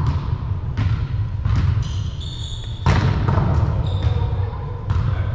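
Volleyballs being struck and bouncing on a hardwood gym floor: a series of sharp smacks echoing in the hall. Sneakers squeak briefly about two seconds in, over a steady low rumble.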